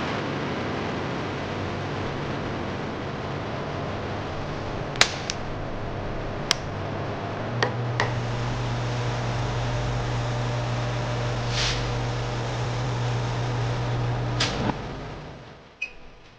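Production-line machinery running with a steady hum and background noise, broken by a few sharp clicks. The hum grows louder about halfway through, and everything fades down near the end.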